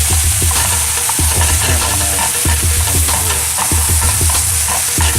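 Steak sizzling steadily in a hot frying pan, with utensils scraping and clicking against the pan as the meat is stirred.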